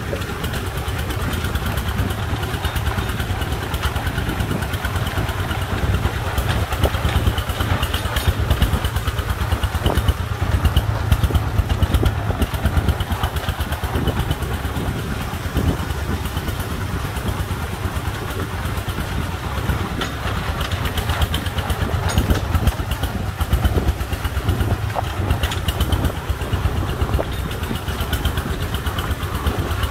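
Công nông farm truck's single-cylinder diesel engine chugging steadily as the loaded truck drives ahead on a dirt track.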